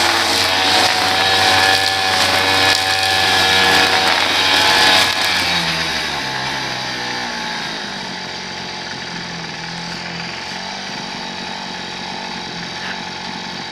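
Small gasoline engine of lawn-care equipment running steadily, loud for the first five seconds and then quieter from about six seconds in.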